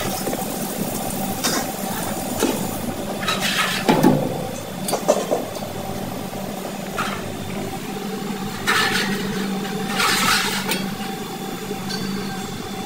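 Tap water running into a stainless steel sink, with louder splashing surges about four seconds in and twice more in the second half as prawns are rinsed and handled in a steel bowl. A steady machine hum runs underneath.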